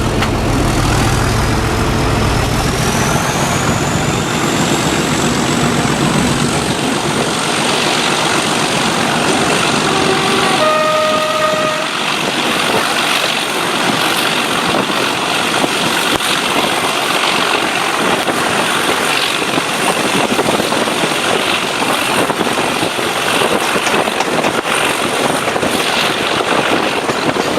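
Class 37 diesel locomotive's English Electric V12 engine working hard as it pulls away, its turbocharger whistle rising in pitch over the first few seconds and then holding steady. A short horn note sounds about ten seconds in, over a steady rushing noise of the moving train.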